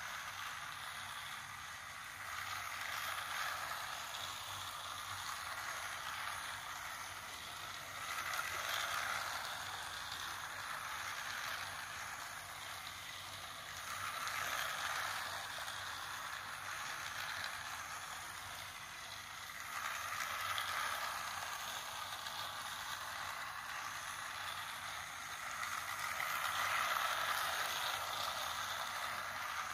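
Motorised toy train running on a plastic track: a steady whir that swells about every six seconds as the train passes close on each lap.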